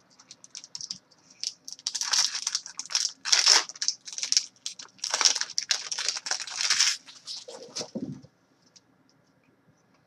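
A trading card pack's wrapper crinkling and tearing as it is opened, in a run of crackly bursts, followed near the end by a short dull thump.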